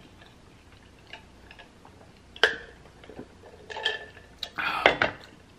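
Drinking from a stainless steel tumbler with a straw. It is mostly quiet, with a sharp click about halfway through, then a short noisy sound and a cluster of small clicks and knocks near the end as the tumbler is handled.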